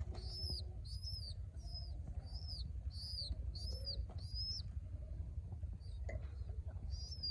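A baby pigeon (squab) giving high, thin begging peeps, about two a second, each rising and falling in pitch; they stop about four and a half seconds in and one more comes near the end. A hungry, orphaned squab begging for food.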